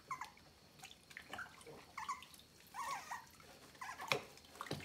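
Small puppy whimpering during its bath: several short, high whines that bend in pitch. A sharp knock sounds about four seconds in.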